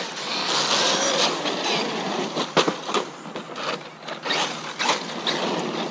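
Traxxas Maxx RC monster truck running on pavement: its electric motor and drivetrain whirring with tyre noise, broken by several sharp ticks and knocks.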